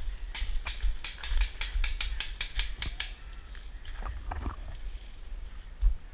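Rapid crackling and rustling of leaves and branches as someone pushes on foot through dense woodland undergrowth, about five snaps a second for the first three seconds, then a few scattered scrapes.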